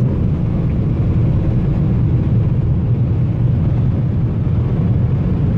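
Steady interior noise of a Ford Mustang GT's 5.0-litre V8 cruising at high motorway speed, the engine's low drone blended with tyre and wind noise, heard from inside the cabin.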